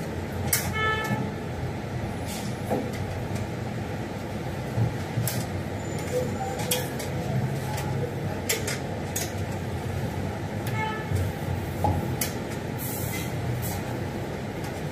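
Plastic clips of a Toyota Coaster's air filter box cover being pressed and snapped into place, heard as a scattered series of sharp clicks and knocks over a steady low hum.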